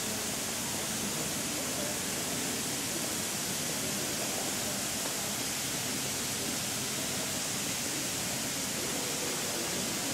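Sprinkler jets spraying water, a steady hiss with no breaks.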